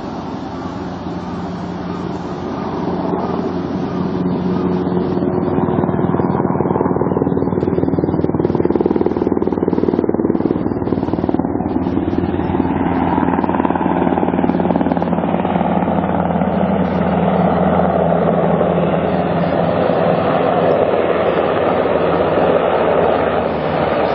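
Loud, steady rumble of a passing vehicle, with a low hum running through it, swelling about four to six seconds in and then holding.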